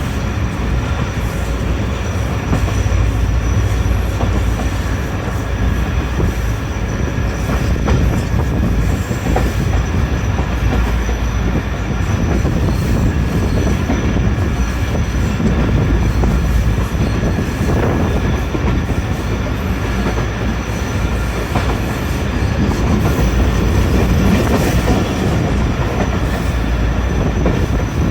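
Passenger train running along the track at speed: a steady, loud rumble of wheels on rails, with a thin high-pitched tone running through it.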